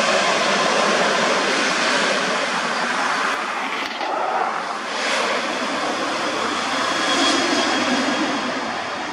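Ryanair Boeing 737-800's jet engines running as the airliner rolls along the runway: a steady, loud rushing noise.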